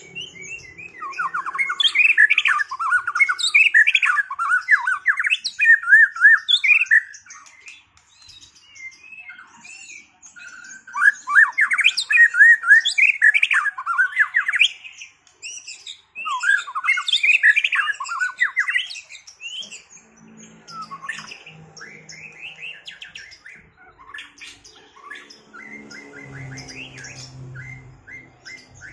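White-rumped shama singing a fast, varied song against a rival in a duel. The song comes in three loud bouts in the first twenty seconds, then continues more softly.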